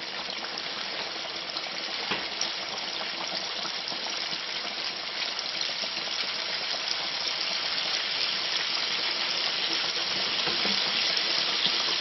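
Flour-and-cornstarch-coated chicken thighs sizzling as they fry: a steady crackling hiss that grows slowly louder.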